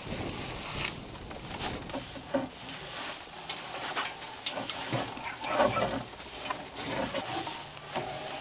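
Dry hay rustling and crackling as an armful is shaken and dropped into a wooden slatted feeder, with a few animal calls from the farm animals in the middle.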